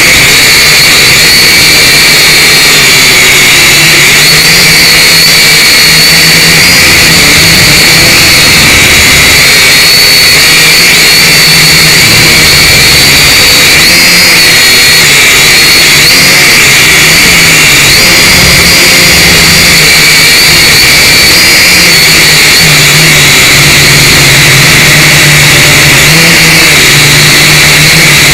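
Syma X5C quadcopter's four brushed motors and propellers, a loud steady whine whose pitch wavers up and down, heard through the drone's own onboard camera microphone.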